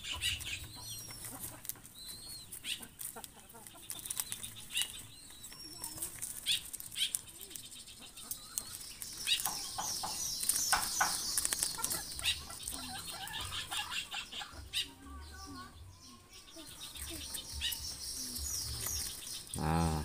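Young zebra doves flapping their wings in repeated flurries as they jostle over food, with short high chirps in between.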